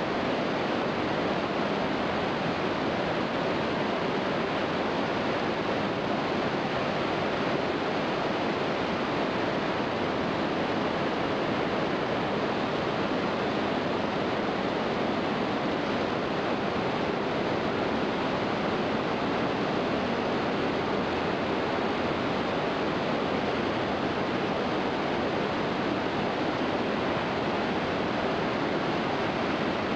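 Iguazu Falls: a large waterfall's water pouring down in a steady, loud, unbroken rush that does not change.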